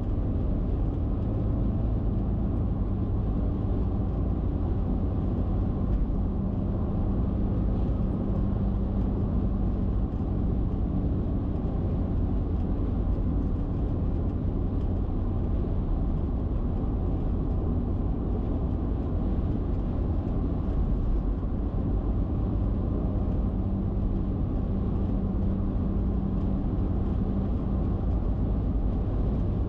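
Steady road noise of a car cruising at highway speed, around 120 km/h: tyre and wind roar with a low engine drone, unbroken throughout.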